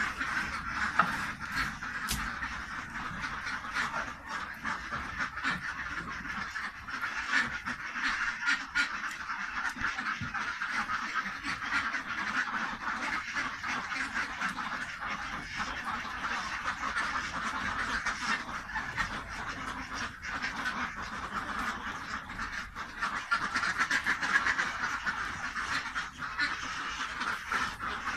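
A flock of domestic ducks quacking without pause, many calls overlapping.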